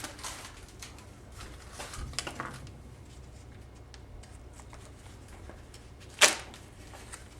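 Light clicks and rustling of small parts being handled, with one sharp, loud click about six seconds in.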